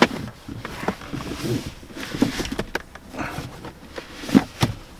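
Plastic center-console tray of a 2019 Ram 1500 being handled and slid forward: scattered knocks, clicks and scrapes of plastic, with two sharper knocks near the end.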